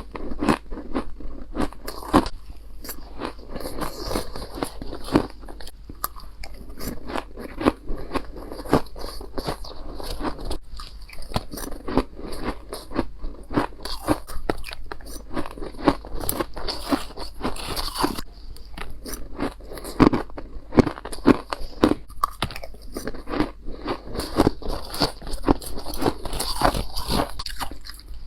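Powdery chunk ice being bitten and chewed: a dense, irregular run of sharp crunches, several a second.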